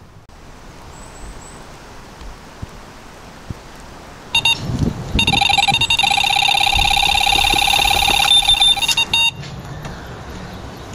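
Carp bite alarm going off on a take: a few short beeps, then a fast, almost unbroken stream of high beeps for about four seconds as a carp runs hard with the line, stopping near the end.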